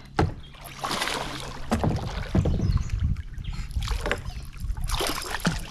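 Water splashing and sloshing with scattered sharp knocks around a kayak as a hooked bass is played up alongside.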